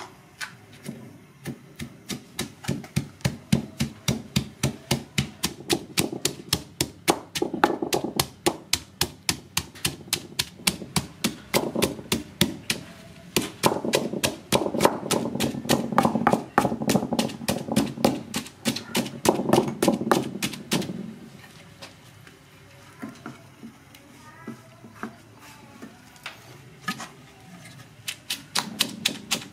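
Wooden pestle pounding chopped aromatics and salt into a paste in a stone mortar: steady knocks at about four a second. The pounding thins out for a few seconds after the middle and picks up again near the end.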